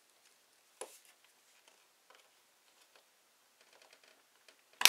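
Small plastic Playmobil figure parts being handled and fitted together, giving a few faint clicks, with one sharp snap near the end as a piece clicks into place.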